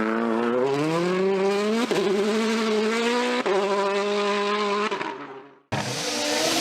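Rally car engine accelerating hard, its pitch climbing, with two quick upshifts about two and three and a half seconds in, then holding high revs before fading out. After a sudden break another rally car engine starts, running at high revs.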